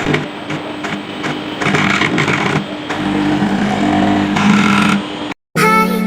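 CNC milling machine running on acrylic: a steady machine noise with a hum that shifts in pitch and regular ticks, cut off abruptly about five seconds in. Guitar music starts right after.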